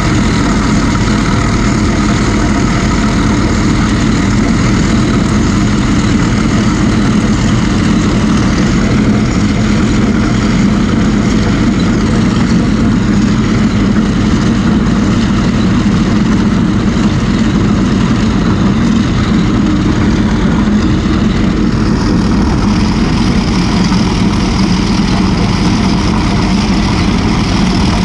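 A 1980 Hoes drainage machine's air-cooled Deutz V8 diesel running steadily under load as the trencher cuts a drain through the soil.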